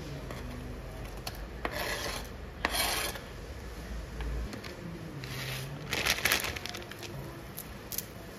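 Kimchi being scraped off a cutting board into a pot of boiling broth: a few short rasping scrapes with small clicks.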